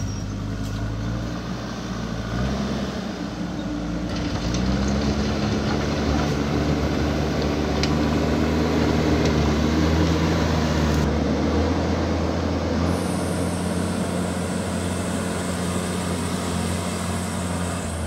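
JCB backhoe loader's diesel engine working under load as the front bucket pushes dirt and rock, revving up a few seconds in and settling to a lower, steady note in the second half.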